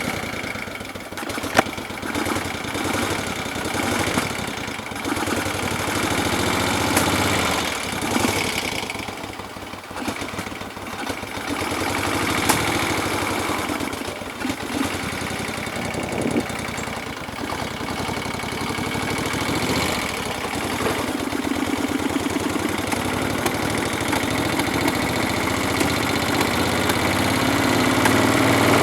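1973 Moto Guzzi Eldorado's air-cooled V-twin running cold with no choke, its idle rising and falling unevenly. Near the end the engine speed climbs steadily.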